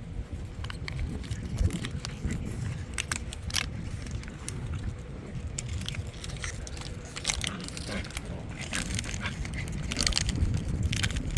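Dogs chewing and biting on a sock toy, making a continuous irregular crackling crunch, sharp snaps coming every fraction of a second.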